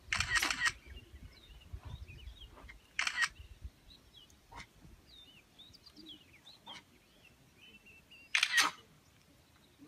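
Camera shutters firing in rapid bursts, three times: at the start, about three seconds in, and near the end. Small birds chirp between the bursts.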